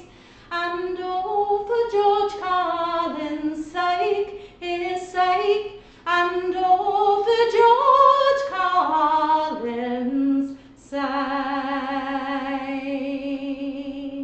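A woman singing a traditional folk ballad unaccompanied, in phrases with short breaths between them. She ends on a long held final note with a wavering vibrato for the last few seconds.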